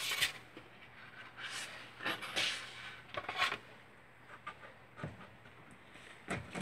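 Sheets of foam core and mat board being handled on a table: a few brief scraping rustles in the first few seconds as a board is slid and lifted off the mat, then a couple of faint knocks near the end.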